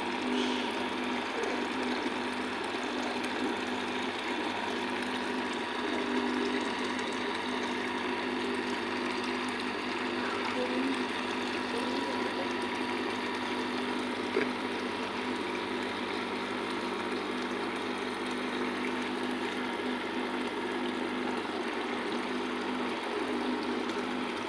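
Steady drone of chrome-plating shop machinery running with a constant hum and an even water-like hiss; a single short click about fourteen seconds in.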